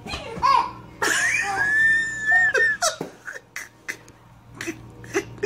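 Baby vocalizing: a long high-pitched squeal held for about two seconds starting a second in, then a run of short laughs and yelps.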